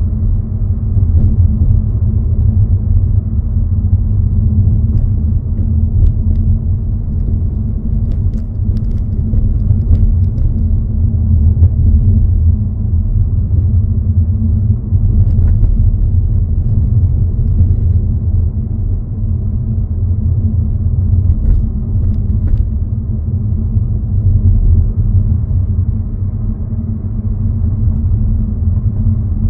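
A car being driven: a steady low rumble of road and engine noise, with a few faint clicks.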